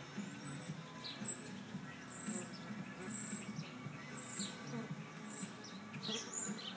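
Small birds chirping: short, high, falling chirps about once or twice a second, over a low, uneven hum.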